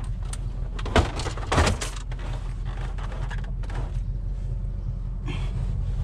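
Knocks and clatter as a flat-screen TV is set down and shifted in an SUV's cargo area. Two sharp knocks come about a second in, half a second apart, with a lighter knock near the end. Under it all runs the steady low hum of the vehicle's idling engine.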